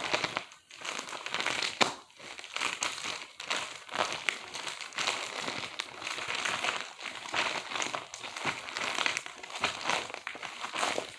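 Continuous crinkling and rustling of fidget toys being handled, full of small irregular crackles.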